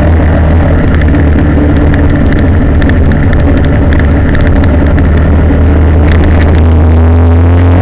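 Vehicle engine running steadily on the move, a loud constant low drone that shifts in pitch near the end.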